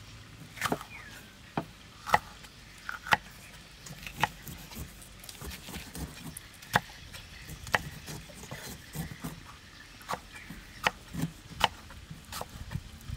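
Kitchen knife slicing a green bell pepper, knocking on a thick wooden chopping block in sharp, irregular strokes about once a second.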